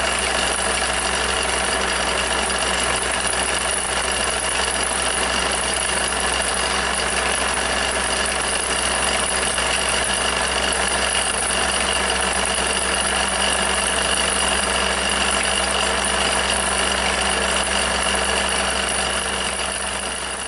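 Jensen No. 5 toy steam engine running steadily, driving the model workshop's line shafts, belts and pulleys: a continuous mechanical running sound that begins to fade near the end.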